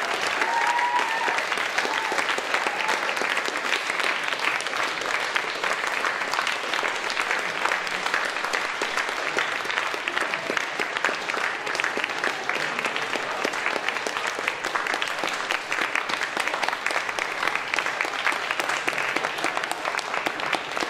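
Audience applauding in a long, steady round of clapping.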